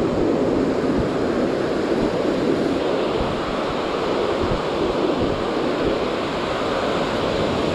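Ocean surf washing and breaking in a steady rush, with wind buffeting the microphone.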